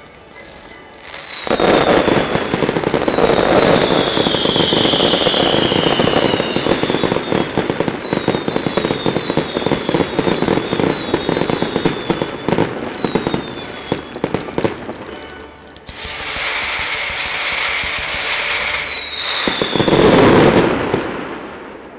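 Fireworks display: dense crackling and rapid bangs of rockets and shells, with whistles falling in pitch, starting about a second and a half in. After a short lull, a second loud volley with another falling whistle builds to the loudest point near the end, then fades.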